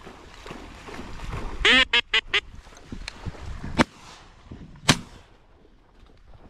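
A quick run of four loud quacks about two seconds in, the first one longest. Two sharp clicks follow, about a second apart.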